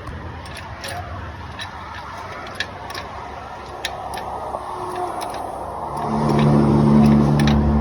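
Scissor jack being cranked by hand to lift the car, giving irregular sharp metallic clicks. About six seconds in, a loud steady vehicle engine hum comes in.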